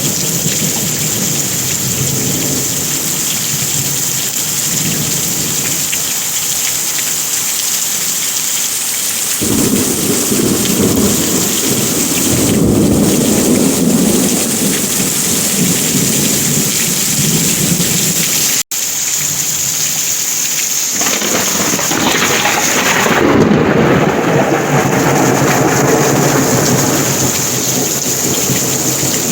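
Heavy rain falling steadily, with two long rolls of thunder, the first building about a third of the way in and the second about two-thirds in. The audio drops out for an instant between them.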